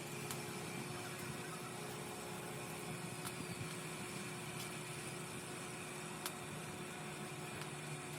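A machine running steadily with an even hum and a few faint ticks.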